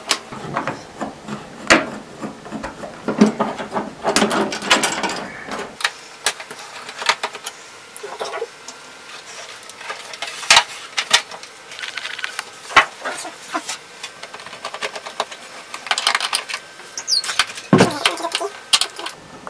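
Scattered clicks, taps and knocks as an LG LED TV's plastic back cover and metal chassis are handled and taken apart with screwdrivers.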